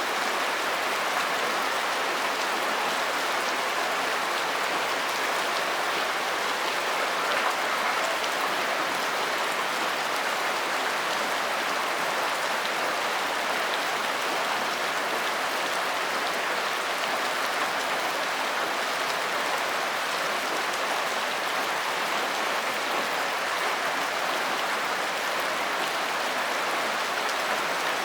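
Steady rain falling: an even, unchanging hiss of many drops.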